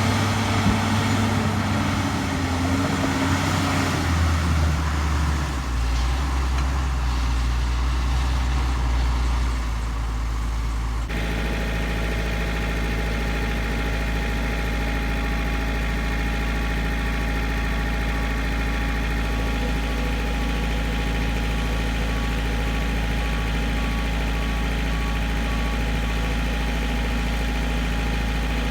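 Bulldozer's diesel engine running, its pitch shifting for the first several seconds, then settling to a steady idle about ten seconds in.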